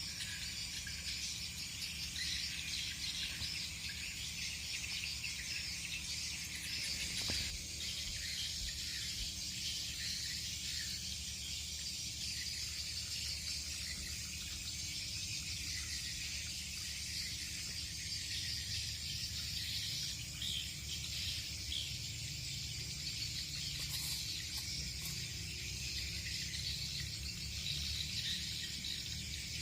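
Steady chorus of insects, a dense high buzz that keeps on without a break, over a low rumble, with a single knock about seven seconds in.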